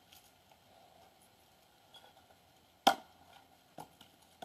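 A hatchet strikes wood on a chopping block once, sharp and loud, splitting kindling, followed by a lighter knock about a second later.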